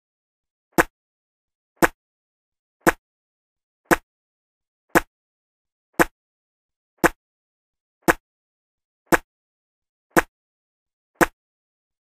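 A person spitting: a short, sharp spit sound effect played over and over, about once a second, eleven times, with dead silence between repeats.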